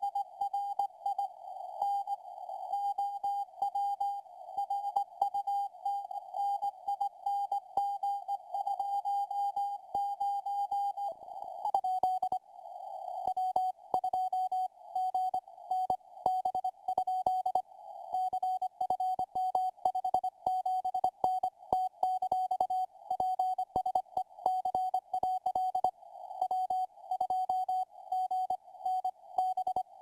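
Morse code (CW) signal received through a software-defined radio, heard as a single beeping tone keyed on and off at a slow speed, about 5 to 9 words per minute, with crackling static clicks throughout. About twelve seconds in, a brief rush of noise comes in and the tone continues slightly lower in pitch.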